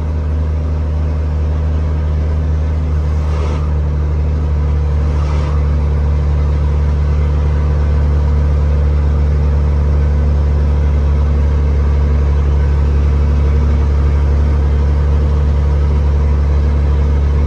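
Scania 112 truck's six-cylinder diesel engine pulling steadily under a heavy load of about 44 tonnes, heard from inside the cab and held at about 1,500 rpm to help it cool as its temperature rises. The engine note grows slowly louder.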